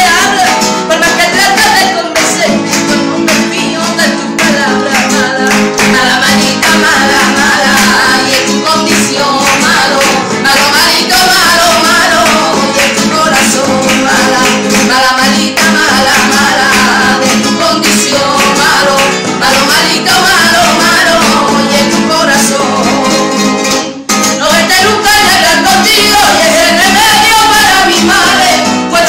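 A woman singing flamenco, her voice wavering through long melodic lines, to a Spanish guitar strummed beneath her. Both stop briefly for a moment near the end, then carry on.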